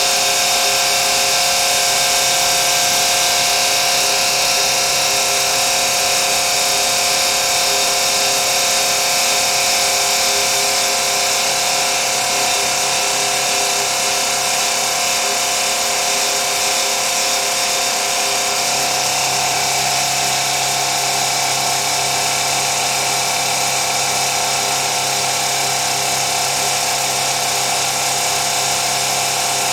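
Factory machinery running continuously: a steady mechanical whir and hiss with several held tones. About two-thirds of the way through, the mix shifts slightly and a low hum comes up.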